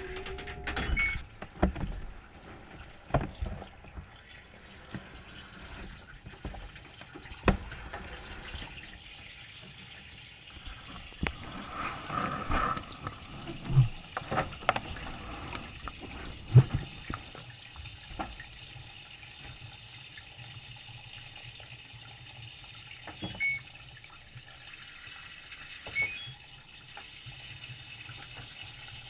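Washing machine filling with water, a steady rush of water with scattered knocks and clunks in the first half. A low steady hum sets in a little past halfway.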